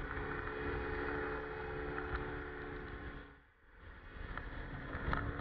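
SYM Jet 14 150cc scooter's single-cylinder engine running at a steady high pitch near its top speed of about 110 km/h, under heavy wind rush over the handlebar-mounted microphone. The sound dips briefly about three and a half seconds in.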